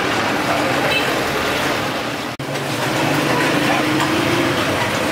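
Busy street noise, mostly the engines of passing traffic running steadily, with a brief drop in the sound about two and a half seconds in.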